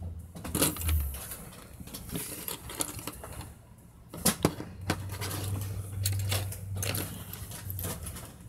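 Small Lego plastic pieces clicking and clattering against one another and the table as a hand picks through a loose pile, with a few sharper clicks scattered irregularly.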